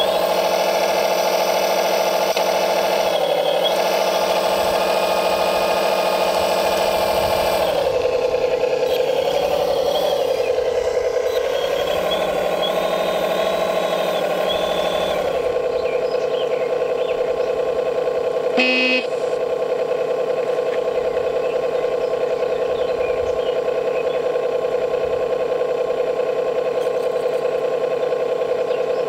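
Steady whine of an RC hydraulic excavator's electric pump, a 1/14-scale Volvo. Its pitch dips and wavers several times in the first half as the arm and bucket take load, then holds steady. A short beep sounds about two-thirds of the way through.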